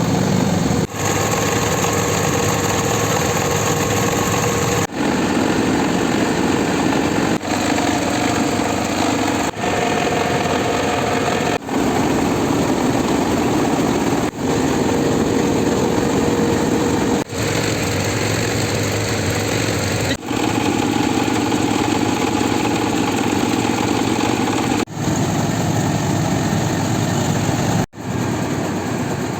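Engine of a rice-milling machine running steadily and loud, broken by abrupt cuts every few seconds, with the pitch changing slightly from one stretch to the next.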